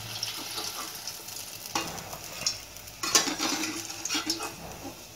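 Hot ghee sizzling in a metal kadai while fried cheese balls are scooped out with a perforated metal slotted spoon, the spoon scraping and clinking against the pan. The scraping is busiest between about three and four and a half seconds in.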